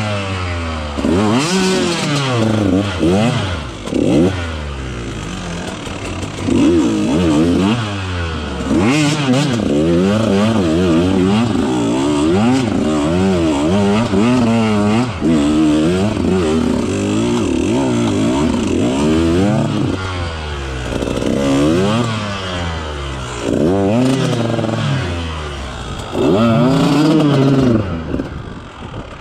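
2018 KTM 150XCW's 150 cc two-stroke single-cylinder engine revving up and falling back, over and over, in short bursts of throttle as the bike climbs a steep, slippery single track. It drops off briefly near the end, then revs again.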